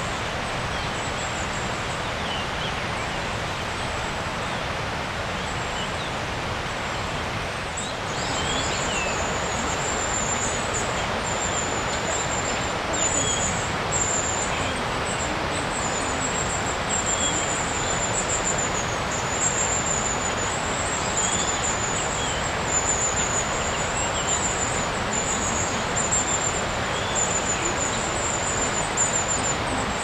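A steady rushing outdoor background noise with an unbroken chorus of very high, thin twittering calls above it, fitting a flock of long-tailed tits with newly fledged young, plus a few short bird notes lower down. The whole gets a little louder about eight seconds in.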